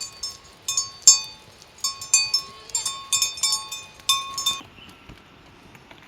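A small metal bell ringing in irregular strikes, about two or three a second, each strike leaving a short bright ring; the ringing stops about four and a half seconds in.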